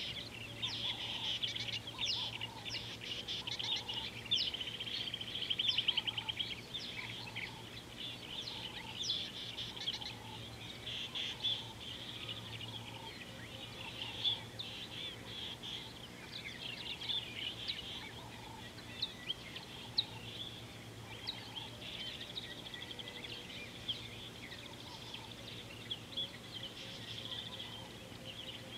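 Several wild birds chirping and calling in a busy chorus, with a fast trill about five seconds in and softer repeated low notes between, over a steady low hum.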